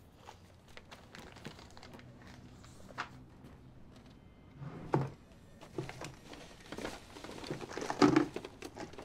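Objects being handled in a small room: scattered light knocks and rustling, with louder thuds about five and eight seconds in.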